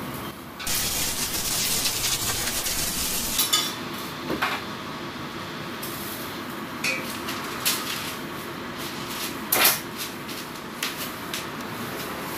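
Kitchen clatter of utensils and cookware: several separate sharp metal knocks and clinks, the loudest nearly ten seconds in, with a hiss in the first three seconds.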